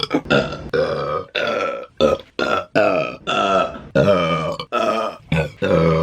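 A woman burping loudly, about a dozen short belches of varying pitch and length spliced back to back, each cut off abruptly.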